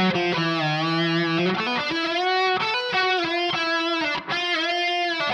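Donner DST-152B electric guitar playing a slow single-note melody, its held notes wavering and dipping in pitch under gentle tremolo-arm vibrato.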